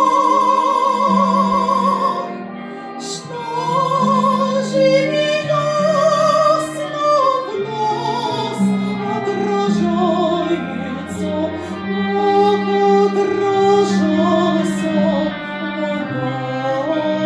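A woman singing in a classical, operatic style with wide vibrato, moving through held notes. Long sustained low tones from the bell accompaniment sound beneath the voice.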